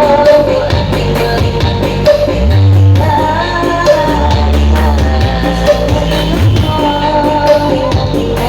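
Loud dance remix played through large street sound systems: a sung or melodic lead over long, heavy bass notes that shift every second or so.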